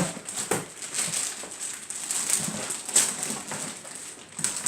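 Rustling and irregular knocks of packaging and parts being handled: welding accessories being unwrapped from plastic bags and set down.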